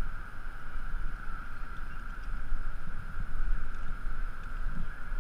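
Wind buffeting a body-mounted camera's microphone, a rumble that swells and fades, over a steady high hiss.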